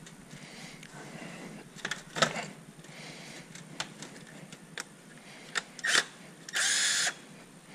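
Scattered light clicks of metal tools on the 12-volt battery terminal, then near the end a cordless driver whirs for about half a second, spinning the nut off the battery's positive terminal.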